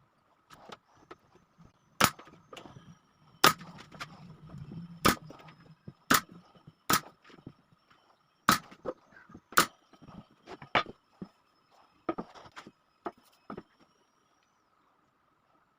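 Sharp knocks of a tool striking wood, about ten in all, spaced unevenly around a second apart.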